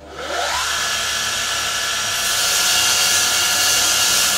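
Electric motor starting up: a whine rising over about half a second, then running steady with a loud hiss.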